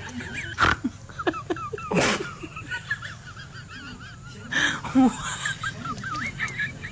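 Animal calls: rapid, wavering chirps throughout, broken by a few short, sharp noisy bursts, the loudest about two seconds in.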